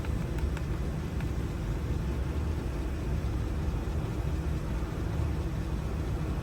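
Steady low rumble of an idling engine, with a few faint light clicks in the first second as small lock parts are handled.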